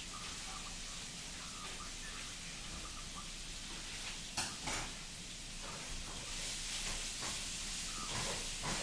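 Steady hiss of background noise, with two faint clicks about four and a half seconds in.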